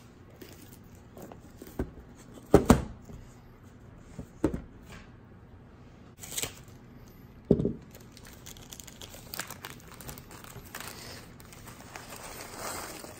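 Clear plastic wrap crinkling and tearing as it is stripped off a wooden kit box, with several knocks as the box is set down and handled; the loudest is a double knock about two and a half seconds in.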